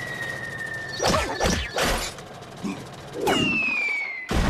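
Cartoon sound effects: a long, slowly falling whistle with three crashing impacts about a second in, then a second, quicker falling whistle that ends in a loud crash near the end.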